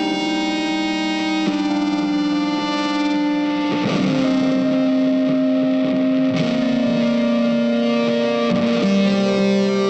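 Background music: distorted electric guitar playing long held notes that change every two seconds or so.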